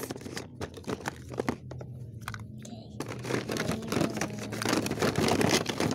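Plastic toy kitchen dishes being handled: dense rapid light clicking and rustling, growing louder toward the end.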